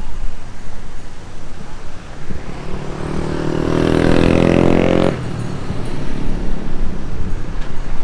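A motor vehicle's engine revving up close by, its note climbing for about two seconds before cutting off abruptly, over the gusty rumble of wind buffeting the microphone.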